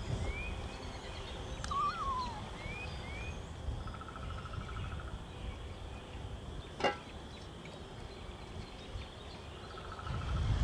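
Wild birds calling in a woodland: a few short rising chirps and a brief warbling call that falls in pitch in the first few seconds, and a rapid trill repeated a few times, over a low wind rumble. A single sharp click about seven seconds in.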